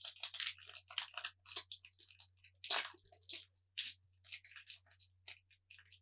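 Foil Pokémon booster pack wrapper being torn open and crinkled by hand, in short irregular bursts of ripping and crackling, loudest a little under three seconds in.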